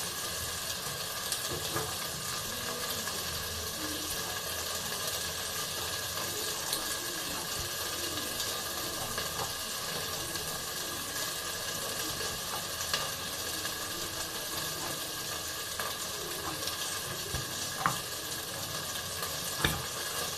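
Steady background hiss with a few soft knife clicks and knocks, as a knife makes slits in a raw brinjal. The sharpest knocks come past the middle and near the end.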